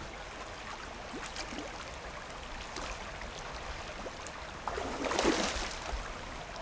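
Creek water running steadily, with a louder burst of noise lasting about a second, about five seconds in.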